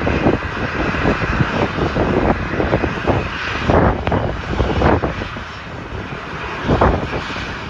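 Aircraft engines running at the airport, overlaid by strong gusting wind that buffets the microphone in irregular blasts.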